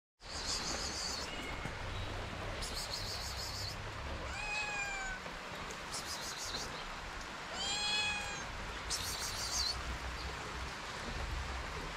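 A kitten meows twice, about four and eight seconds in, each a drawn-out, high-pitched call. Short bursts of high, rapid chirping recur every few seconds over a steady background hiss.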